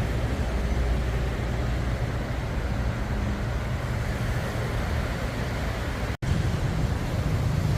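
Steady road traffic noise, with a deep rumble underneath. It drops out for an instant about six seconds in, then carries on.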